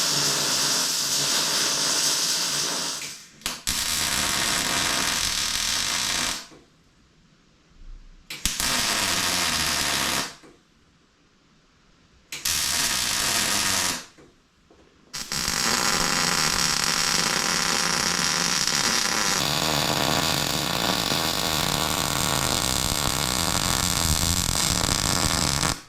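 Welding arc on solid steel stock, run in bursts: about five passes of a few seconds each, the longest about ten seconds near the end, each starting and stopping sharply with short quiet pauses between.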